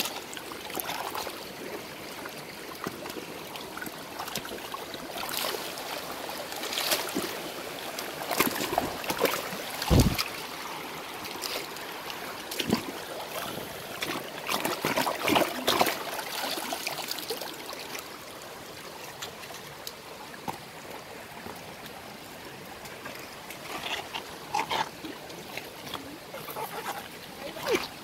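Shallow, stony stream running, with irregular splashing and sloshing in the water, busiest in the middle. A single dull thump about ten seconds in.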